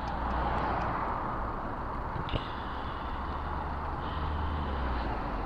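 Steady vehicle and road noise with a constant low engine hum, and one sharp click a little over two seconds in.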